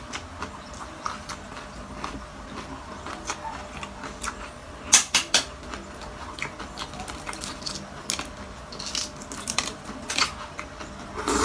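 Metal spoon tapping and cracking the shell of a balut (boiled fertilized duck egg). There are three sharp taps about five seconds in, among lighter clicks and crackles of shell.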